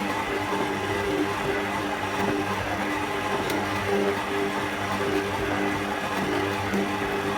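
Electric stand mixer running steadily with a dough hook, kneading bread dough: a constant motor hum and whir.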